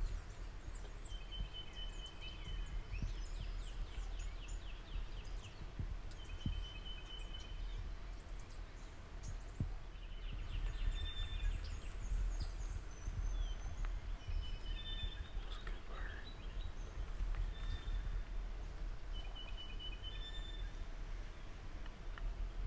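Songbirds calling and singing, with short high chirps and trills coming every second or two, over a steady low rumble.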